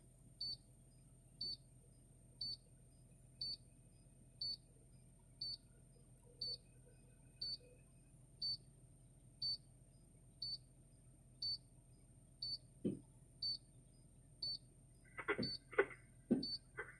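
Faint, short, high-pitched electronic beep repeating steadily about once a second.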